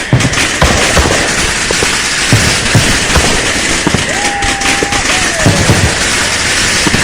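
Firecrackers and fireworks going off in a dense, continuous barrage of crackling and sharp bangs. A short held tone that bends downward sounds a little after the middle.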